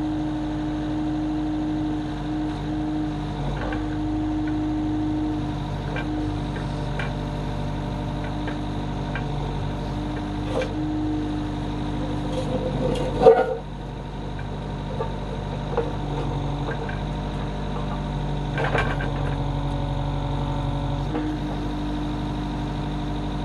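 Avant 650i compact loader's engine and hydraulics running steadily as the backhoe digger arm and bucket move, the engine note shifting a few times under hydraulic load. A few clunks come from the digger arm and bucket, the loudest about 13 seconds in.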